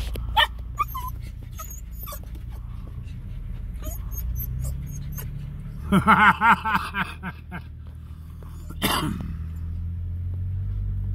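A dog whining and yipping, with a quick run of excited yips about six seconds in and another cry a couple of seconds later, over the low steady running of a vehicle engine.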